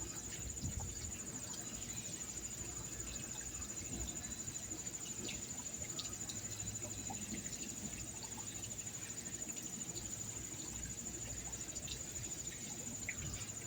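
Insects trilling in a steady, continuous high-pitched chorus, over a faint low hum.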